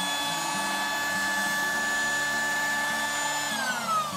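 Rechargeable electric air pump running steadily as it inflates an air mattress. Near the end it is switched off and its whine falls in pitch as the motor spins down.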